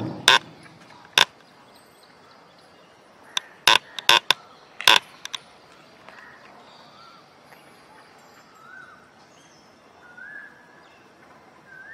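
A few sharp knocks in the first five seconds, singly and then in a quick cluster. After them come faint, short bird chirps over a quiet open-air background.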